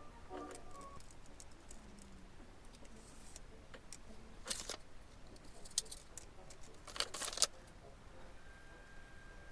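Metal light stand and ring light fittings clicking and rattling as they are handled and assembled, in short scattered clatters with the sharpest pair of knocks about seven seconds in.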